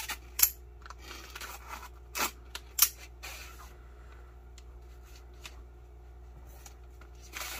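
Plastic and foil food-pouch packaging being handled and pulled apart, crinkling, with a few sharp crackles in the first three seconds, then only light rustling.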